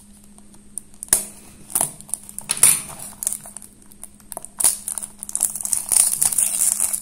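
Thin clear plastic wrap on a small cardboard toy box being picked at and peeled off: a few separate sharp crackles, then continuous crinkling from about halfway through.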